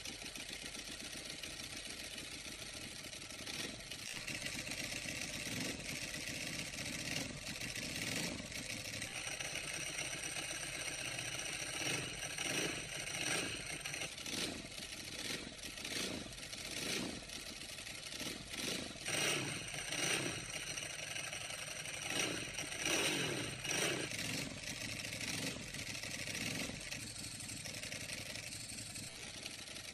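Ducati Hypermotard 1100 EVO SP's air-cooled L-twin idling with its open dry clutch rattling, blipped into short revs again and again through the middle stretch. It breathes through an SC-Project slip-on exhaust with the dB killer removed, so the exhaust is unrestricted.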